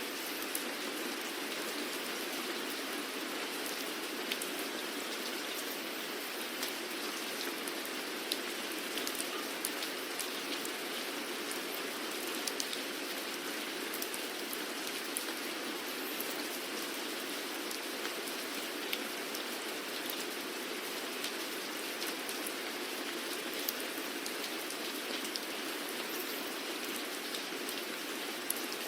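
Steady rain falling on surfaces, an even hiss with many scattered individual drop ticks.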